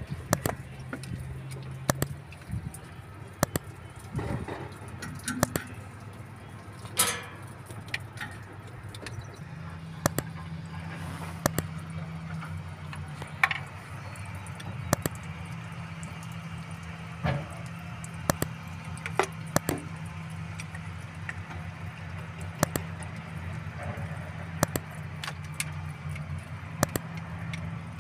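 Hand tools clicking and tapping on metal at the thermostat housing of a Volvo D13F diesel engine: irregular sharp ticks, roughly one every second or so, over a steady low engine hum.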